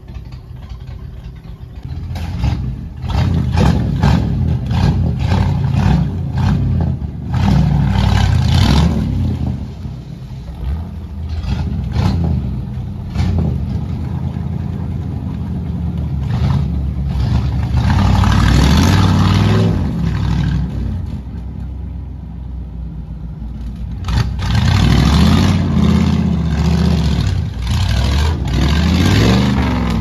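Pickup truck engine revving hard in repeated surges as the truck claws up a steep muddy creek bank, easing off between pushes; near the end the spinning tyres throw mud.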